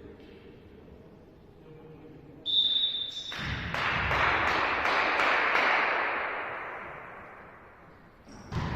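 A referee's whistle blown once, about two and a half seconds in, followed by clapping and cheering that swell and then slowly fade over several seconds, typical of the end of a volleyball rally. A sharp thud near the end.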